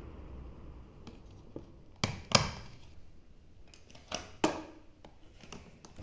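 Steady whir of a Britânia electric fan fading out within the first second, then scattered sharp plastic clicks and knocks from the fan being handled, the loudest about two and a half and four and a half seconds in.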